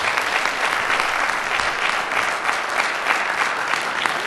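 Audience applauding steadily, welcoming a speaker to the podium.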